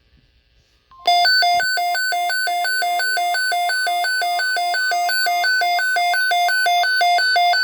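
Weather alert radio alarm going off about a second in: a loud two-tone electronic warble that swaps between a lower and a higher pitch about three times a second. Under it runs a faint steady single tone, the NOAA Weather Radio warning tone that sets off the alert.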